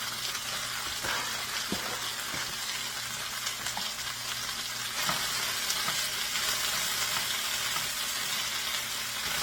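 Chicken pieces and onion sizzling in hot oil in a frying pan, a steady frying hiss with occasional light clicks and knocks as the food is moved about.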